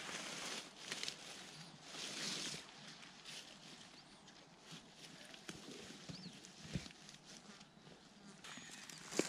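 Soft rustling and shuffling in dry leaves and pine straw as a folding camp chair is opened and set down on the forest floor, in swells near the start and about two seconds in. A couple of faint high bird chirps come through in the quieter stretch.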